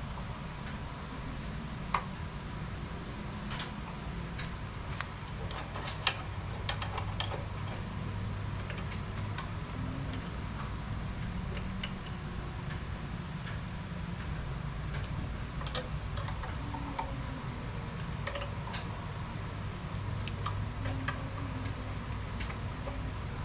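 A steady low motor hum with sharp clicks and ticks scattered at irregular intervals.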